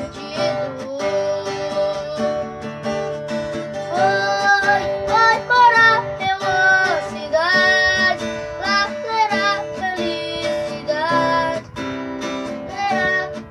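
A song: a high voice singing a melody over strummed acoustic guitar.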